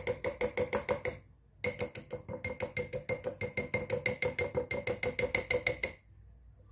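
A spoon working rapidly against a metal sieve to push the blended syrup through, making fast, even clinks of about seven a second with a ringing tone. It pauses briefly about a second in and stops about six seconds in.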